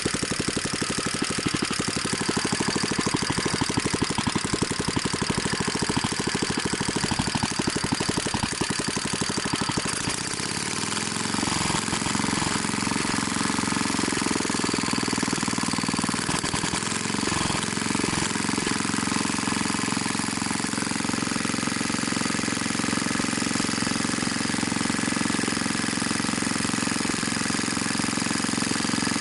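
BSA 220cc single-cylinder governed stationary engine running steadily without a muffler, a fast, even beat of exhaust pulses. About ten seconds in its tone shifts and it settles into a deeper, fuller note.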